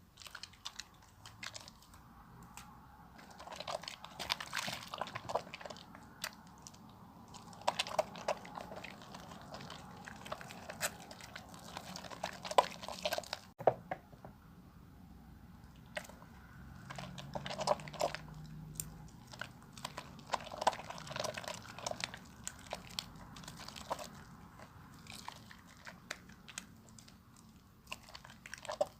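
Bar of soap being lathered with water: wet squishing and many small clicks of foam, coming in bursts of a few seconds with short quieter pauses between them.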